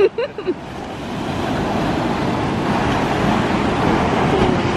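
Surf washing up a sandy beach, a steady rush of breaking waves that swells about a second in. A few brief voice sounds come at the very start.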